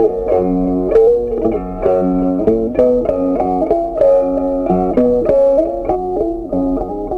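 Background music: a plucked guitar tune with a steady beat and a bass line.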